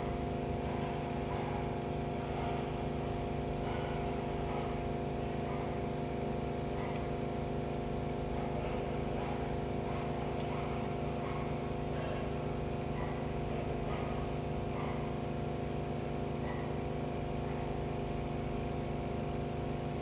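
Aquarium pump running, a steady hum of several fixed tones with a faint wash of moving water over it.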